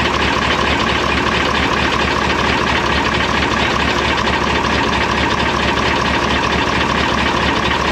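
Air-cooled Deutz V8 diesel engine of a MAN KAT truck idling steadily, heard up close through the open engine hatch. It has just been restarted after an injector was refitted.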